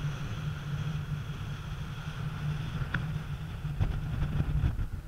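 Wind buffeting the microphone on the deck of a sailing ship under way, a heavy rumble that flutters, with a faint steady hum above it. A few light clicks or knocks come in the last couple of seconds.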